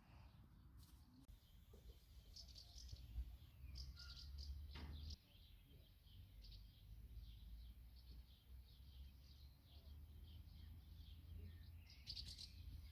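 Small birds chirping and twittering, many short faint calls in quick succession, over a low steady rumble, with a single click about five seconds in.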